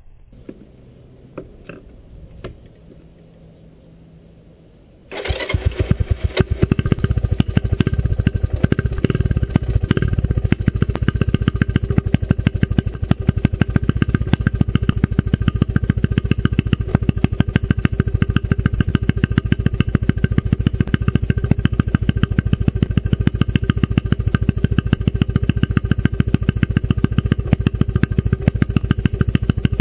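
A few light clicks, then about five seconds in the 1985 Honda ATC 125M's single-cylinder four-stroke engine fires on a cold start and settles into a steady idle. Its straight-pipe exhaust gives rapid, evenly spaced pulses.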